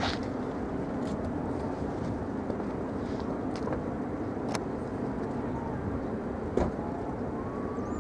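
Steady low rumbling outdoor noise, with a few short sharp clicks scattered through it; the loudest comes about six and a half seconds in.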